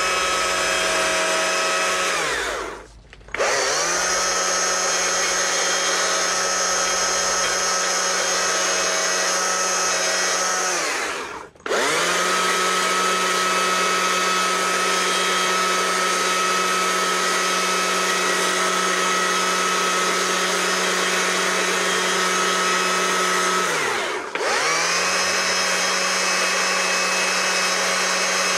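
Stihl chainsaw held at full speed, cutting into the wood of a carved bear's face with a steady high whine. Three times, about 3, 12 and 24 seconds in, the saw winds down briefly and revs back up as the trigger is let off and squeezed again.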